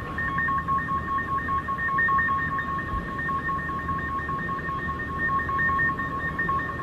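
A steady two-note electronic-sounding tone with a fast flutter, held over a low rumble.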